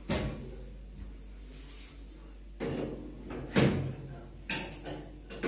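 Knocks and scrapes of metal as the base of a gas stove is handled, like a drawer or panel being worked, with the sharpest knock about three and a half seconds in.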